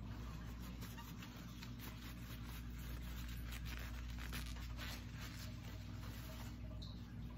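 Paper towel rustling and rubbing as a metal hand-mixer beater is wiped clean, faint over a steady low hum.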